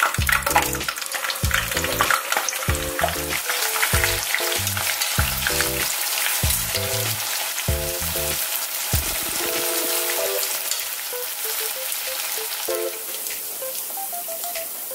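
Tofu cubes deep-frying in hot oil in a wok, a steady sizzle with crackling, on their second fry for crispness. Background music plays under it, its low notes dropping out a little past the middle.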